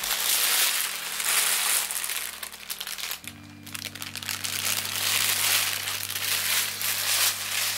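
Loud crinkling, crackling noise over background music of sustained low chords, which change about three seconds in.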